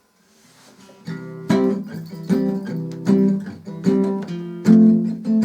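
Music: a guitar strumming chords in a steady rhythm, fading in over the first second or so.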